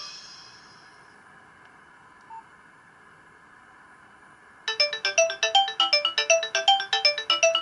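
Nokia 2865i polyphonic MIDI ringtones: one tune's last notes die away, a gap of faint hiss follows, and about four and a half seconds in the next ringtone starts, a fast run of short repeating notes.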